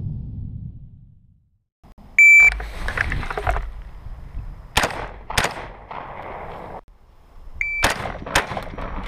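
A low rumble fades out. After a short silence a shot-timer beep sounds, followed by rifle fire, including a pair of shots about half a second apart. Near the end a second beep is followed quickly by two more shots.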